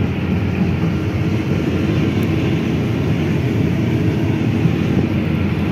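Case 8800 sugarcane harvester running steadily, a loud, even machine noise heard from inside its cab during cane harvesting.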